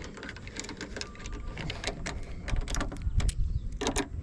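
Torx bolts on a car door handle being hand-tightened with a driver: a run of small, irregular metal clicks and scrapes.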